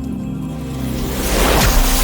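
Background music with sustained low chords and a rising whoosh sweep building near the end, as a transition effect.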